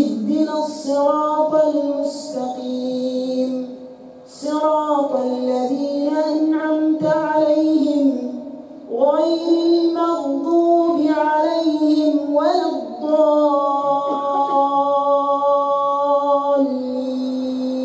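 A man's voice reciting the Quran in a melodic, chant-like tajweed style, drawn out in long ornamented phrases. The phrases are separated by short breaths about 4 and 8 seconds in, and the last one ends on a long held note.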